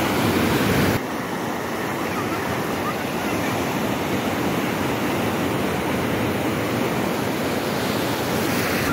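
Breaking ocean surf and foaming whitewash washing in around the microphone, a loud, steady rush of water. It is louder for about the first second, then drops suddenly.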